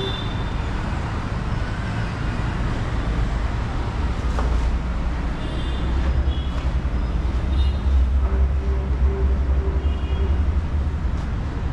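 Steady low rumble of a running engine or heavy machinery, growing louder about eight seconds in.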